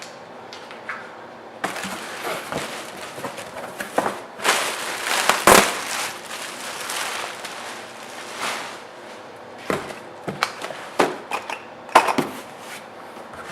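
A cardboard shipping box being opened and its packing material crinkled and rustled, with scattered clicks and knocks and a loud crackle about five and a half seconds in.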